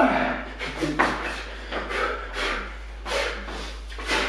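A person throwing a fast run of boxing punches, with short, sharp hissing exhalations and rustles about two to three times a second.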